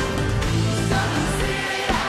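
Live band playing a synth-pop song, with sustained synth chords over strong bass.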